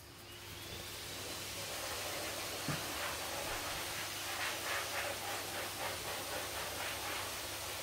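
Fingers massaging the base of a Yorkshire terrier's ear, a soft rhythmic rubbing about three times a second from about three seconds in. Under it is a steady hiss that swells in over the first second or two, with one short thump.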